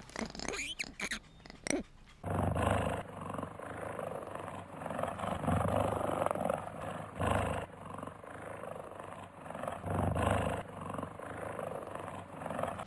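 Cheetah growling in long, rough rumbles that swell four or five times. About two seconds in, faint short calls and clicks from a ring-tailed lemur give way to the growling.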